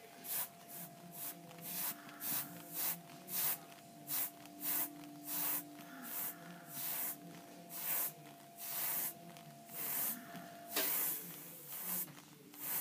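Iwata Eclipse airbrush spraying paint in some two dozen short bursts of hiss, one to two a second, as the first layer is built up freehand.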